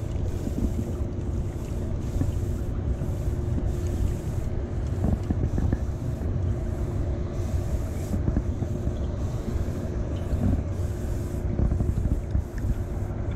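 Wind buffeting the microphone on open water, a steady low rumble, with a faint steady hum running underneath.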